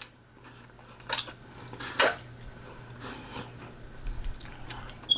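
Close-up eating sounds: wet chewing and lip smacks, with a few sharp smacks, the loudest about one and two seconds in.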